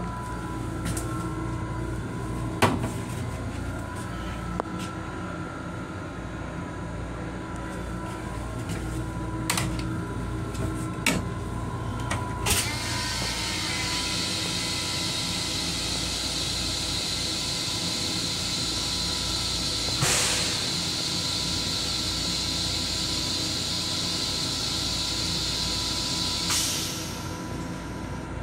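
M7 railcar toilet flushing: a steady hiss starts right after a sharp click about halfway through and stops shortly before the end, over the low rumble of the moving train. A few clicks and knocks come earlier, and one brief louder rush comes in the middle of the hiss.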